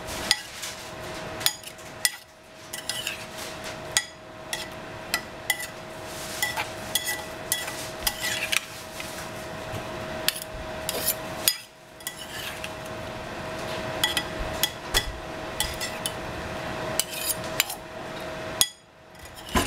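Two metal spoons tossing wet, salted cucumber slices in a ceramic bowl, with irregular clinks of metal against the bowl and soft slapping of the wet slices. There are brief pauses now and then.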